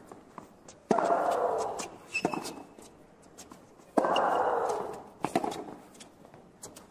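Tennis rally on a hard court: crisp racket strikes on the ball, roughly every second and a half, alternating between players. The strikes about a second in and about four seconds in are each followed by a woman player's loud, drawn-out shrieking grunt lasting about a second. Quieter strikes from the far side come between them.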